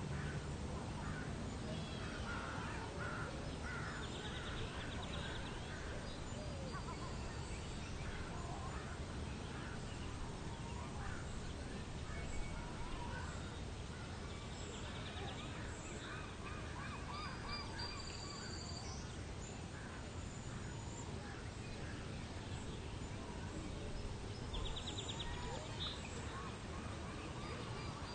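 Outdoor ambience of many birds calling and chirping over a steady low hiss, with a brief buzzy trill about four seconds in and again near the end.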